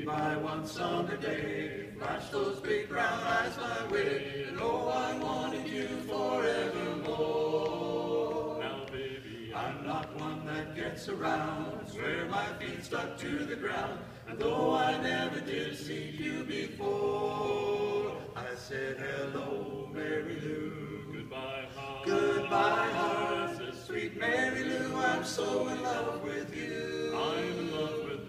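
Male vocal quartet singing a cappella: four men's voices together in harmony, in phrases of a few seconds each.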